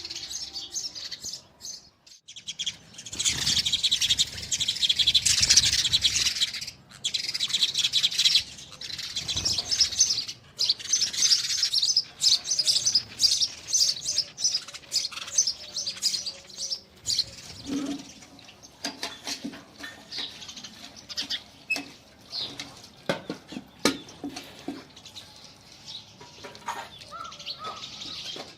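Sparrows chirping, a dense run of rapid high chirps that is busiest and loudest in the first half, then thins out to scattered chirps.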